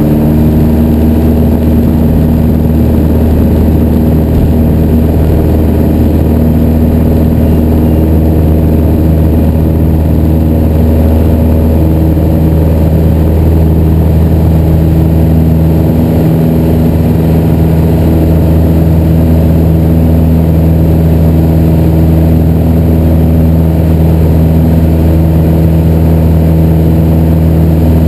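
Single-engine Piper PA-28-181 Archer II's four-cylinder Lycoming engine and propeller running steadily at full takeoff power through the takeoff roll and into the climb, heard from inside the cockpit.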